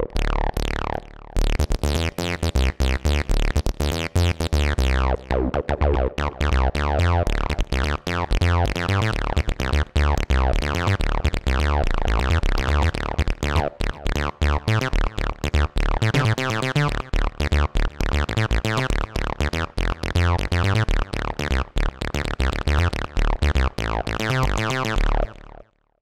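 Synapse Audio Dune 3 software synthesizer playing its acid preset "Amino Acid KS": a fast run of short, repeated notes, each snapping shut quickly, over a pulsing deep bass. It cuts off suddenly near the end.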